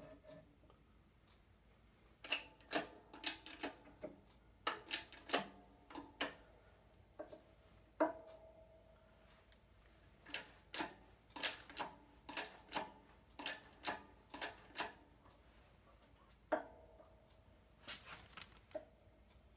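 Sharp metal clicks and clanks from pumping the handle of a hydraulic shop press's bottle jack, in runs of strokes about two a second with short pauses between, some with a brief metallic ring. The press is forcing a new universal-joint bearing cap into a driveshaft yoke.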